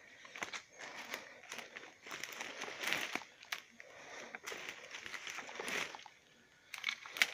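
Irregular rustling and crunching of dry leaves and twigs underfoot and against the body while walking through brush, with scattered sharp snaps.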